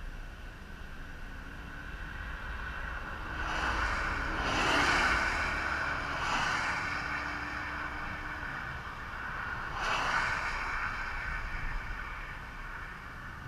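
Highway traffic passing close by: vehicles, including a tractor-trailer, swish past on wet pavement one after another, about four, six and ten seconds in, the first the loudest, over a steady low rumble.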